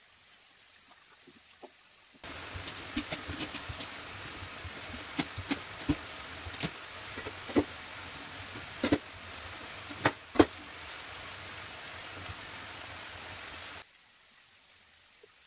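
Chicken livers and onions sizzling in a frying pan: a steady hiss with sharp pops and crackles, starting suddenly about two seconds in and cutting off near the end. Before and after it, only faint taps and rustles over quiet room tone.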